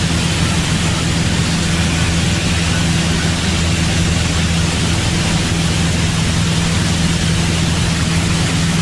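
Piper single-engine light aircraft in level flight, heard from inside the cockpit: a steady engine and propeller drone with a constant hiss of airflow.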